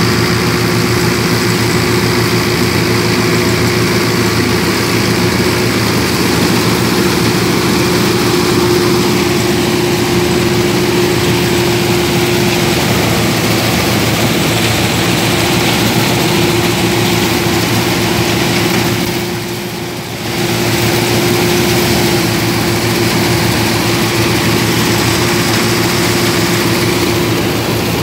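Sonalika 750 tractor's diesel engine running steadily while driving a straw reaper, the engine's drone mixed with the reaper's machinery running at a steady pitch. The sound drops briefly about two-thirds of the way through, then returns.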